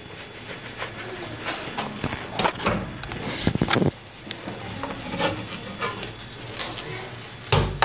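Knocks and clinks of a glass pot lid being gripped with an oven mitt and lifted off a cooking pot, with a louder knock near the end.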